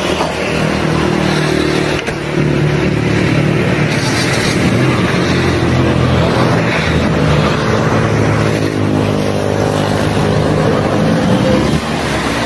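A motor vehicle engine running steadily close by: a continuous low hum with traffic noise.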